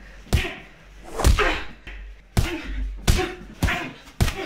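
Boxing-glove punches landing on a body, about six sharp padded smacks at uneven intervals.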